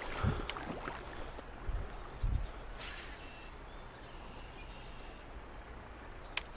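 A baitcasting rod and reel handled and cast from a riverbank: a few low thumps in the first couple of seconds, a short hiss about three seconds in, and one sharp click near the end, over faint steady river ambience.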